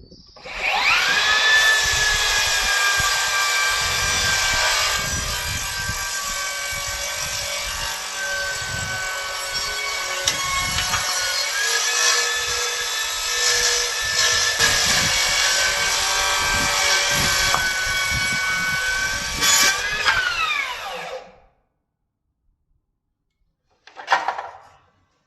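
Makita HS011 40 V cordless circular saw spinning up with a rising whine and cutting through 6 cm of ash for about twenty seconds. Its pitch dips briefly where the blade snags for a moment, and it then winds down with a falling whine. A short burst of noise follows a few seconds later.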